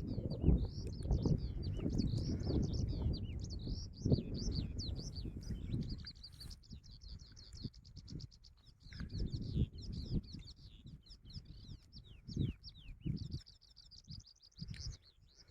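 Many small birds chirping continuously in quick, high notes. Under them a low rumbling noise, loudest for the first six seconds, then a few short low thumps.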